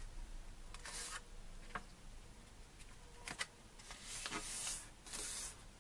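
A sheet of paper being folded in half and its crease smoothed down by hand: soft, scattered rustles and rubbing of paper, the longest a little past the middle, with a small click about a second and a half in.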